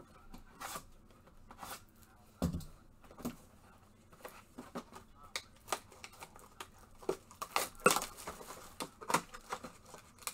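Foil Panini Absolute Football trading-card packs being handled and torn open by hand: a run of short crinkles and rips, loudest about eight seconds in.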